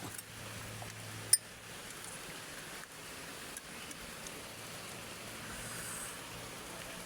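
Steady rain hiss with a single sharp clink about a second in and a few faint ticks.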